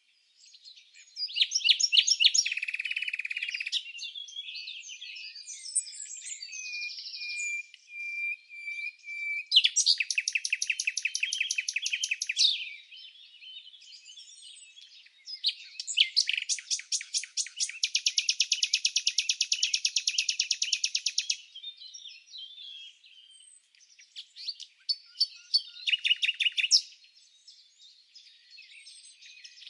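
Songbirds chirping and singing: several overlapping songs of rapid trills, quick chirps and a held whistle, with brief lulls between phrases. The longest trill comes at about the two-thirds mark.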